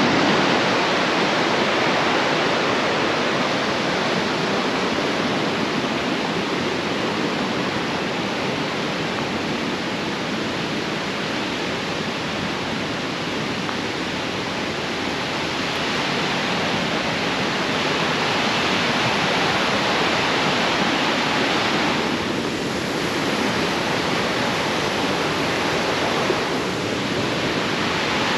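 Whitewater river rushing steadily over rapids and falls, a loud, even rush of water.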